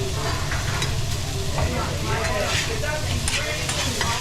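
Food frying and sizzling on a teppanyaki griddle as it is stirred, with short scattered clicks throughout.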